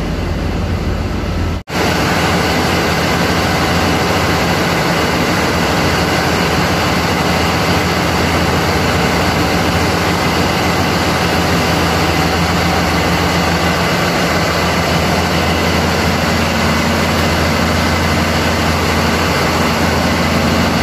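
Heavy machinery running steadily and loudly, a constant low hum under a dense mechanical noise, with a momentary break about two seconds in.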